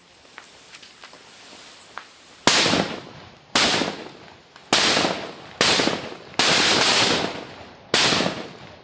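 Firecrackers going off in a ring, one after another. Faint crackling comes first, then six loud sudden bursts, each with a hissing tail that dies away over about a second.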